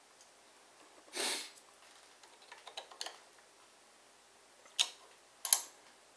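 Hand tools clicking on a riding mower engine's valve rocker while the valve lash is set: a few faint metal ticks, then two sharp clicks near the end. A brief rush of noise about a second in.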